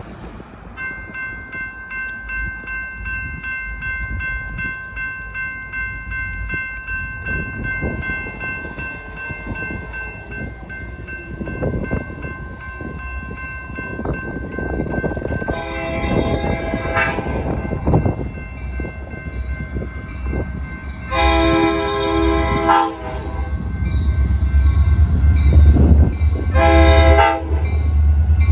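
Railroad grade-crossing bell ringing steadily, then the lead EMD GP40 diesel locomotive sounding its horn for the crossing: two long blasts, a short one, and the start of another long one near the end, the standard crossing signal. The locomotive's low engine rumble grows loud as it approaches.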